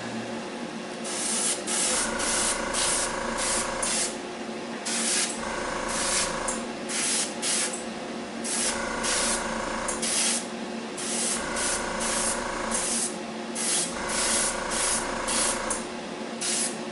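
Gravity-feed airbrush spraying paint in repeated hissing bursts: about five longer passes with short puffs between, over a steady low hum.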